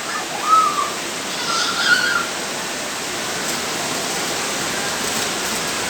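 Steady rain falling, a constant even hiss, with a child's short high calls in the first two seconds.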